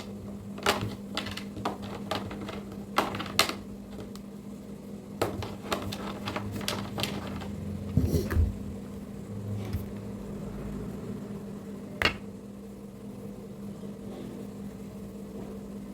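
Scattered light clicks and knocks from kitchen handling, a dozen or so at irregular spacing, over a steady low hum.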